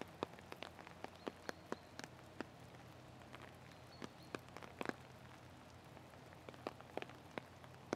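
Faint raindrops ticking at an irregular pace, a few a second, over a low steady hum.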